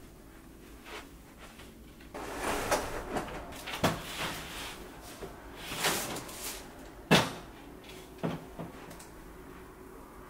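Large aluminium-framed IKEA Hovet floor mirror being handled and leaned against a wall. Scraping and shuffling start about two seconds in, with a few sharp knocks; the loudest knock comes about seven seconds in.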